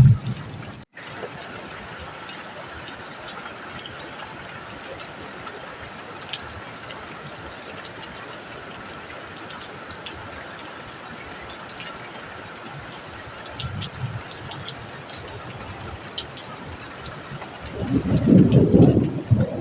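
Steady rain hiss with scattered light drip ticks, broken by a brief dropout about a second in. A low rumble of thunder swells and grows loud near the end.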